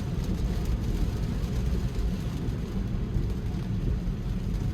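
Steady low road and wind noise of a Tesla driving in a rainstorm, tyres on wet pavement.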